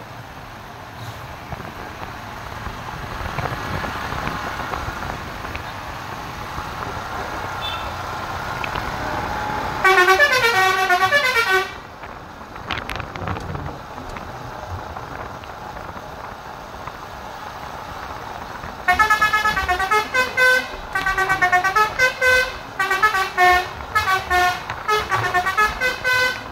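A bus's basuri, a multi-tone musical air horn, playing melodies: one loud burst of stepped notes about ten seconds in, then a long run of short melodic blasts over the last seven seconds. Before the first burst the bus's engine is heard approaching, growing louder.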